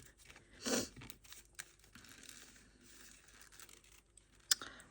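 Packaging rustling and crinkling, with scattered soft clicks, as a small woven willow basket is unwrapped and handled. A short breathy rush comes about a second in, and a sharper click and rustle near the end.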